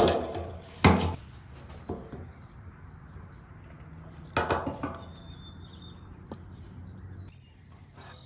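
Handling noises from opening the generator's fuel tank: a sharp clunk about a second in and a short clatter of knocks about four and a half seconds in. Small birds chirp in the background.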